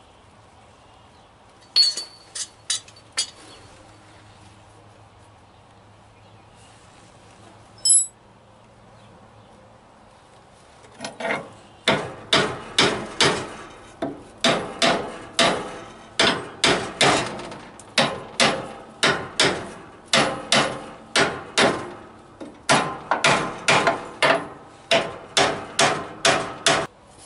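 Steel hammer striking a truck's leaf spring pin to drive it out of the shackle: a long series of hard, ringing metal blows, about two to three a second, starting about eleven seconds in. Before that come a few sharp metallic clicks.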